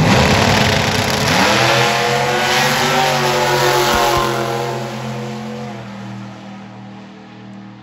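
Drag racing car accelerating hard away down the strip, its engine rising in pitch early on and then holding a steady note as it fades into the distance.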